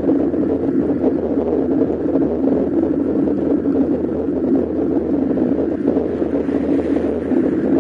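Steady wind and road noise on a bicycle-mounted camera as the bike rolls along an asphalt road, heavy and low in pitch.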